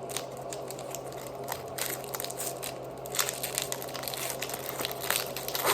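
Foil wrapper of a Pokémon card booster pack crinkling and crackling as it is worked open with the fingers, the crinkling growing denser and louder about two seconds in. A steady low hum lies underneath.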